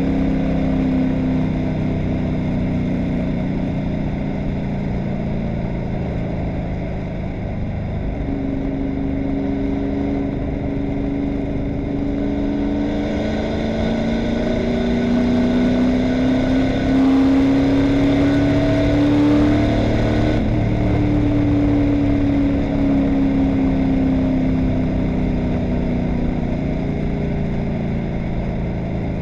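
Stock race car's V8 engine heard from inside the cockpit at speed. Its pitch climbs steadily for about ten seconds under acceleration, then falls away about two-thirds of the way through as the car slows.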